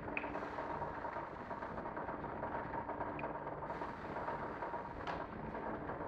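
Müller Martini DS 240 three-knife book trimmer running: steady mechanical noise with a steady high tone, a low rumble that swells every second or two, and a few short sharp clicks.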